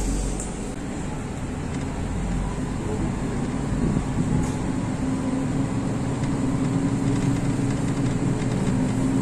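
Diesel railcar engine running under load as the train pulls away from a station, the engine sound building slightly, heard from inside the passenger cabin.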